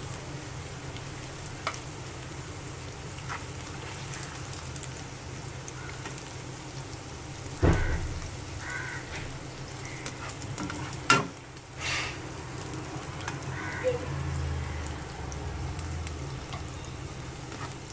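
Scrambled eggs sizzling in hot oil in a nonstick wok, with a metal slotted spatula scraping and knocking against the pan a few times, the sharpest knocks about eight and eleven seconds in.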